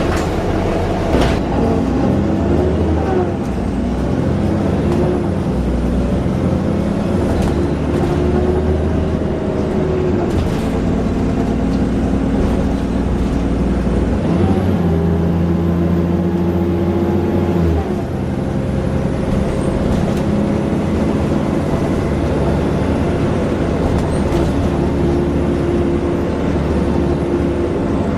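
Alexander Dennis Enviro400 double-decker bus driving under power, its diesel engine note shifting between steady speeds several times as the automatic gearbox changes gear. A faint high whine runs over it, rising about halfway through and then easing down.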